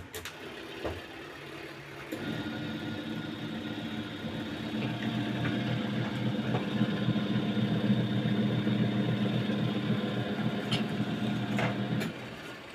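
Washing machine motor running on the wash setting of an automatic washer converted to manual control. It starts about two seconds in, runs with a steady hum for about ten seconds, then cuts off near the end.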